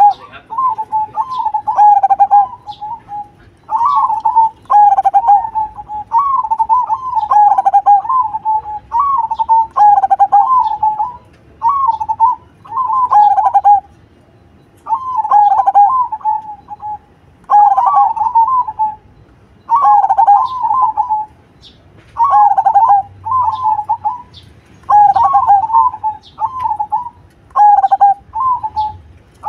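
Zebra dove (perkutut) singing its cooing song: a loud, steady series of short phrases of quick, wavering coos, one phrase every couple of seconds with brief pauses between.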